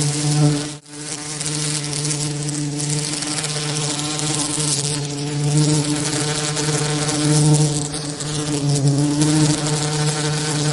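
Bee wingbeat buzzing, a steady low drone with many overtones, mixed with an even hiss as a tinnitus masking sound. It swells and eases slightly, and cuts out briefly a little under a second in.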